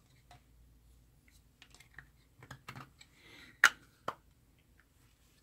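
Scattered light clicks and taps from the plastic case of a Kaiweets ST-100 voltage tester being handled during reassembly, with two sharper knocks about three and a half and four seconds in.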